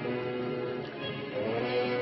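Orchestral background music holding long sustained notes, moving to a new chord about one and a half seconds in.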